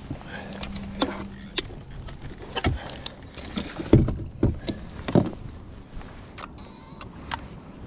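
A string of separate knocks and clunks on the front deck of a bass boat as gear is handled around the bow-mounted trolling motor, over a faint low hum.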